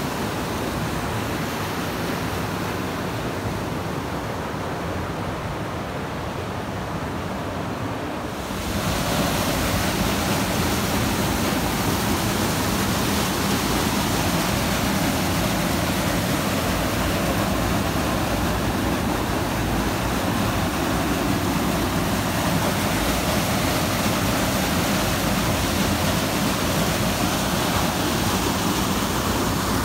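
Mountain river water rushing over rocks, a steady noise that grows louder and fuller about eight seconds in.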